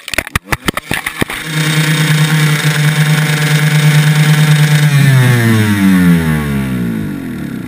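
Dirt bike crashing: a rapid series of knocks and thuds as the bike tumbles over the dirt in the first second or so. Then its engine runs at a steady high rev while the bike lies on its side, and from about five seconds in the revs fall steadily and wind down.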